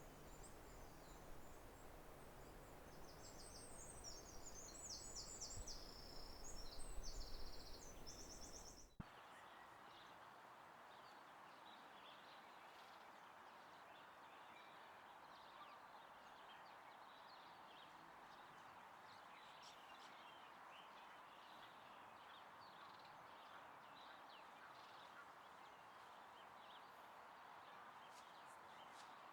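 Faint natural outdoor ambience. For about the first nine seconds there is a low rumble with bursts of high, rapid chirping trills from birds or insects; then it changes abruptly to a steady soft hiss with faint, scattered distant bird chirps.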